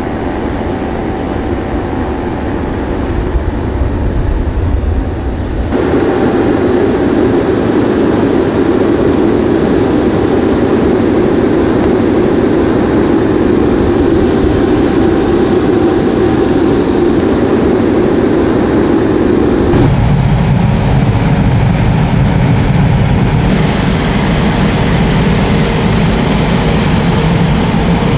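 Jet engine noise from an E-3A AWACS aircraft's four turbofans running on the ground, a steady roar. The sound changes abruptly twice, about six seconds in and again about twenty seconds in, and the last stretch carries a steady high whine.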